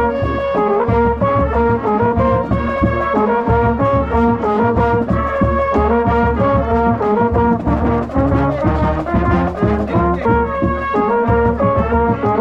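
Marching band playing a brass-led tune, heard from among the players: mellophones, trumpets and trombones on rhythmic punched notes over a steady drum beat.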